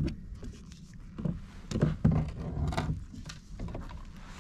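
Irregular thumps and knocks on a plastic kayak hull while a freshly landed kahala (amberjack) is handled out of the water, with a few short scrapes between them.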